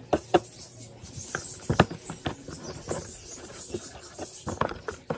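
Sticky slime being pulled and stretched by hand out of a plastic tub, making irregular wet clicks and pops.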